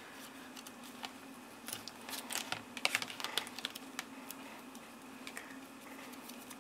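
Paper card and ribbon being handled and pressed down on a cutting mat: a run of light clicks and rustles, busiest between about two and three and a half seconds in, over a faint steady hum.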